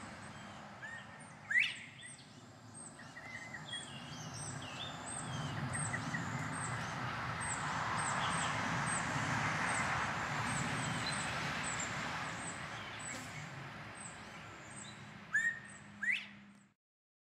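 Male northern bobwhite whistling its rising 'bob-white' call, once about a second and a half in and again near the end, where a short first note is followed by the upswept second. Behind it runs a steady background rumble that swells in the middle, with a run of faint high chirps throughout.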